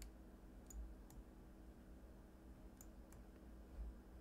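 Faint, sharp computer clicks, about five, scattered over a low steady hum.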